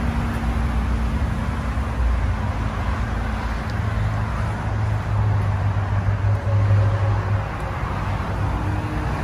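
Low, steady vehicle engine rumble with traffic noise, growing somewhat stronger around the middle and then easing.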